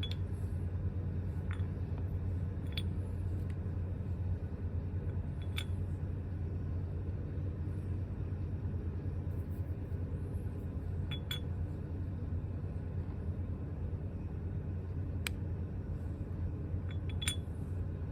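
A scattering of sharp, isolated clinks of small hard parts being handled, typical of variator weight rollers and parts being fitted on a scooter's CVT, over a steady low background hum.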